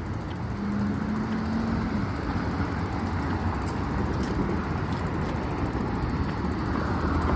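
Steady rolling and wind noise from an electric bike being ridden over a concrete sidewalk, with a brief low hum about a second in.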